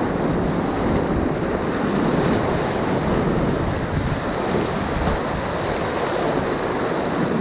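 Ocoee River whitewater rushing steadily around a kayak running a Class III wave train, with wind noise on the microphone.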